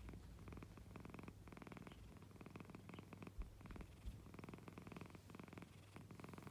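American Shorthair cat purring, faint, in runs of fast pulses with short breaks between breaths. Two soft low thumps come around the middle.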